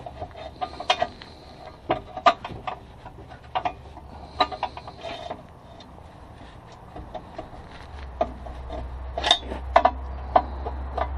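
Irregular metallic clicks, clinks and scrapes of hand tools and a long extension working a bolt up into a car's underside. A steady low rumble comes in about eight seconds in.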